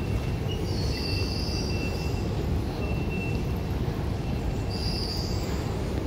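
Steady low rumble of an underground station concourse, with a faint thin high tone that comes and goes and brief high-pitched hisses about one second and five seconds in.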